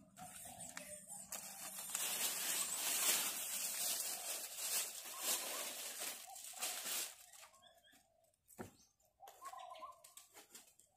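Plastic crinkling and rustling as it is handled, loudest from about two to seven seconds in, then fading to a few scattered rustles.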